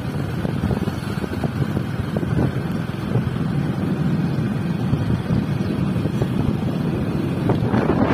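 Wind buffeting the microphone of a moving vehicle: a steady low rumble with constant gusty crackle, growing a little louder near the end.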